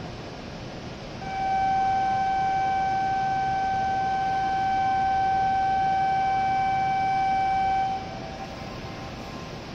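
Station platform departure buzzer: one steady electronic tone held for nearly seven seconds, starting about a second in and cutting off suddenly, over a steady background hiss.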